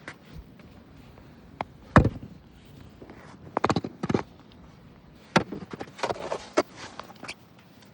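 Irregular crunches and knocks of snow clearing around a car: a sharp knock about two seconds in, then scattered clusters of crunching and a short scraping spell past the middle.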